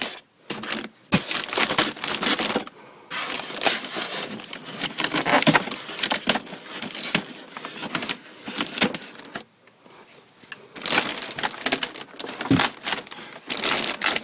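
Packing tape being cut and a cardboard box and packaging handled: rustling and scraping with many sharp clicks, in bursts broken by two short pauses.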